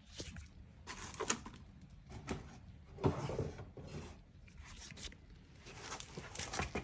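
Rummaging and handling noises: scattered light clicks and knocks with short rustles, as of tools and parts being moved about in a search for a parts bag.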